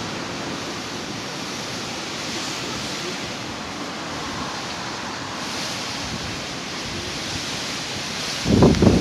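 Strong gusty wind blowing steadily in a storm, as an even rushing noise. A brief louder low buffet comes near the end.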